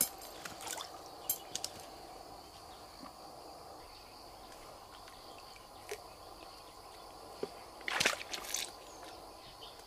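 Steady chirring of insects, with a few small splashes and clicks in the first couple of seconds as a fish keep net is lowered into the river. A short cluster of knocks and rustling comes about eight seconds in.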